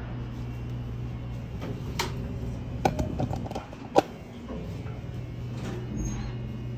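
Steady low hum around a subway-station elevator, with a few sharp clicks and knocks, the loudest about four seconds in, typical of elevator doors and buttons being worked.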